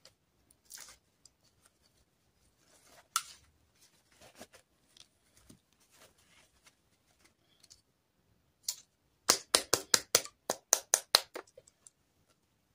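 Hands handling plastic fashion dolls and pulling a fabric doll dress off, with faint rustles and taps. Then, near the end, comes a quick run of about ten sharp clicks or snaps, about five a second.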